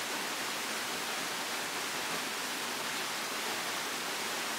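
A forest stream rushing steadily, an even hiss of flowing water with no separate events.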